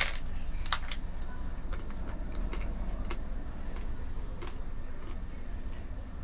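Crisp cracking and crunching of a hard taco shell being bitten and chewed: a quick cluster of sharp crackles just under a second in, then scattered fainter crunches over a steady low hum.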